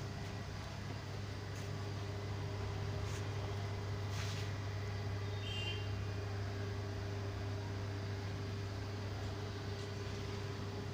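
Electric planetary mixer running steadily with a constant motor hum, with a few faint clicks and scrapes.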